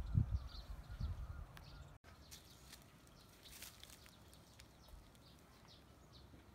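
Low thumps and rumble for about two seconds, then a cut to quiet outdoor ambience with faint, scattered short bird chirps.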